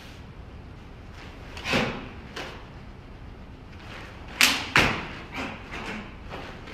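Karate gi snapping with fast strikes and blocks during a kata, mixed with thuds of bare feet on the dojo floor. The two loudest snaps come close together, about half a second apart, a little past the middle, with several softer ones around them.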